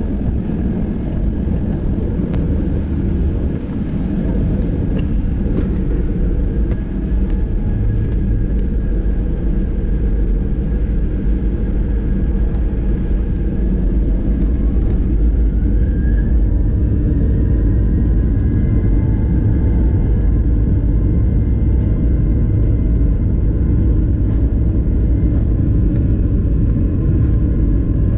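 Boeing 737-800 heard from inside the cabin: a loud, steady low rumble of the aircraft moving on the ground. About halfway through, the CFM56 engines' whine glides up in pitch and settles into several steady tones as the noise grows a little louder, as when the engines spool up for takeoff.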